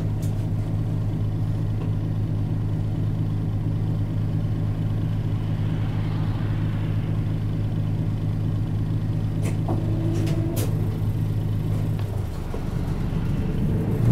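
Isuzu Erga Mio city bus's four-cylinder turbo-diesel engine idling steadily, heard from inside the cabin while the bus stands still. About two seconds before the end the engine note drops and changes as the bus starts to move off. A couple of sharp clicks come a little after halfway.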